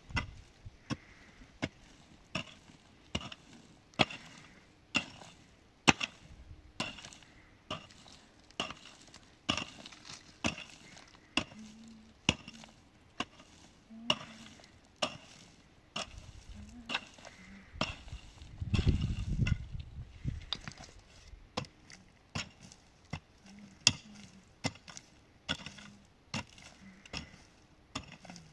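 Steady series of sharp chopping strikes on wood from a hand tool, about one to two a second. A low rumble swells briefly about two-thirds of the way through.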